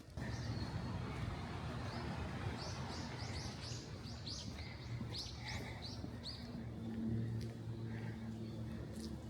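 A small songbird singing a quick run of short, high, falling chirps for a few seconds from about two and a half seconds in, over a steady low drone and hiss of road traffic.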